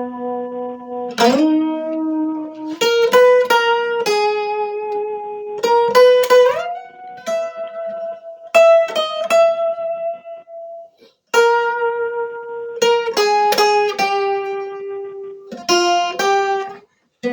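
Guitar playing a slow melodic introduction: plucked chords and single notes left to ring, with a few notes sliding up in pitch. It stops briefly twice, about eleven seconds in and near the end.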